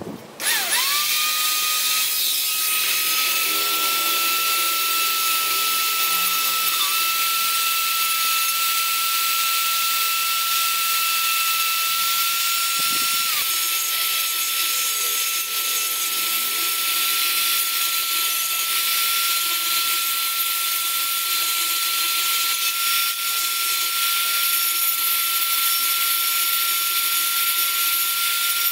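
Handheld rotary tool with a cylindrical grinding stone spinning up with a rising whine about half a second in, then grinding the steel of a saw-blade axe head. It makes a steady high whine over a grinding hiss, dipping briefly about halfway through.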